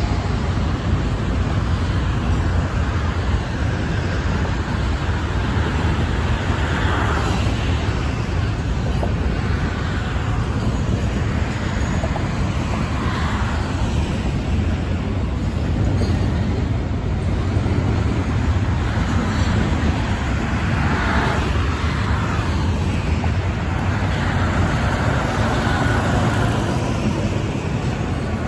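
Steady roar of highway traffic, with cars passing close by every few seconds.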